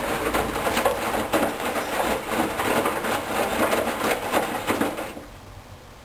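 Hoover Dynamic Wash front-loading washing machine drum turning wet laundry through rinse water during the final rinse with softener, a dense sloshing, splashing churn with irregular knocks. About five seconds in the drum stops and the sound drops away to a quiet background.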